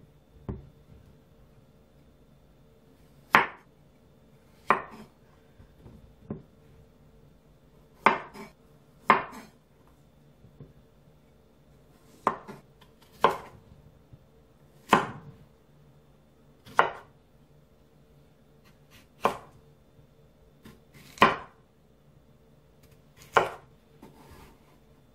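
Kitchen knife chopping through raw cucumbers onto a wooden cutting board: about a dozen single sharp knocks, one every one to three seconds, at an uneven pace.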